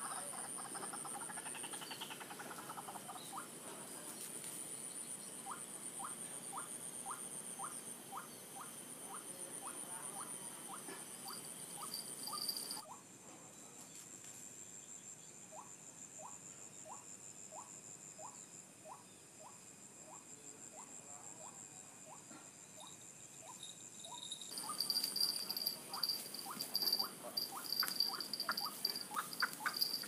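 White-breasted waterhen (ruak-ruak) calling: a long run of short croaking notes repeated about twice a second, over a steady high buzz of insects. About halfway through the calls drop in level for several seconds, then return louder and faster near the end.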